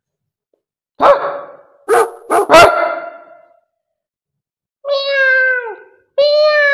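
Dog barking: four sharp barks in quick succession, followed a couple of seconds later by a long drawn-out animal call that drops in pitch at its end, and another long call starting just before the end.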